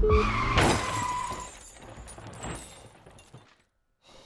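Car crash sound effect: a sudden loud impact with shattering glass about half a second in, then breaking glass and debris crackling and fading out over about three seconds. A steady high tone sounds through the first second and a half.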